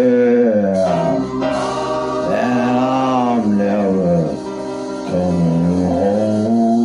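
A man singing a slow country song into a microphone, holding long notes that slide up and down in pitch, over backing music.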